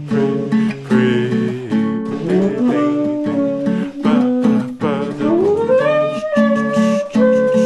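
Acoustic guitar strumming chords, with a tenor saxophone playing a sustained melody over them that slides up between notes.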